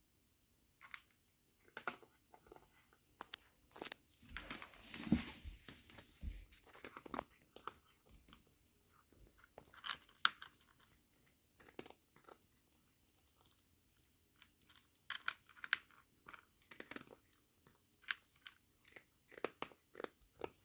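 A cat chewing dry kibble: irregular crisp crunches coming in bursts, with a louder stretch of about two seconds around five seconds in.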